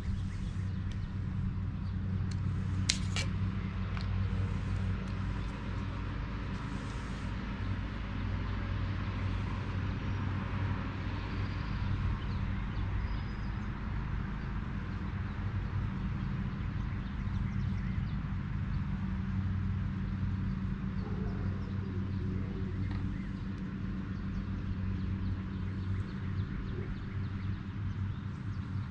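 Steady low hum, with a single sharp click about three seconds in.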